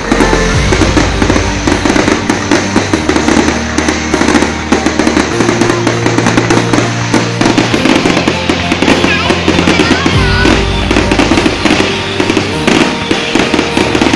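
Loud music with a deep bass line that changes note every few seconds, with fireworks crackling and banging over it.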